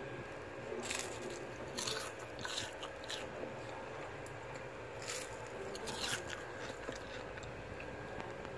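Crisp deep-fried kangkong (water spinach) leaves crunching: several short, sharp, brittle crackles spread through the first six seconds or so, showing how crispy the fried leaves are.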